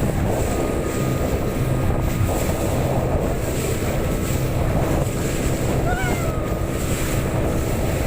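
Small motorboat's engine running steadily under way, with wind buffeting the microphone and waves splashing against the hull.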